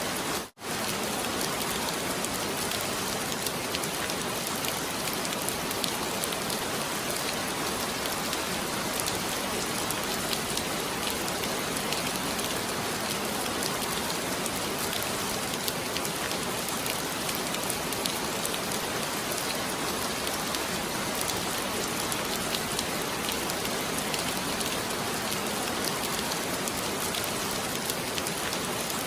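Heavy rain falling steadily, with a brief dropout to near silence about half a second in.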